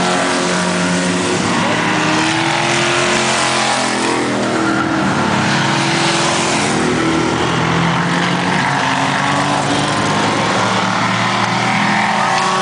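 Several eight-cylinder enduro stock cars running hard around an oval track, their engine notes overlapping and rising and falling in pitch as they come past.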